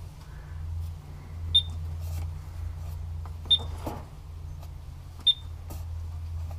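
Honeywell 6150RF alarm keypad giving three short, high beeps about two seconds apart as the * key is pressed again and again, each with a faint key click, to back out of programming mode. A low steady hum runs underneath.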